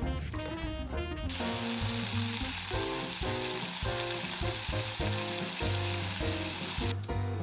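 Food frying in a pan, a steady sizzling hiss that starts abruptly about a second in and cuts off near the end, over background music with a beat.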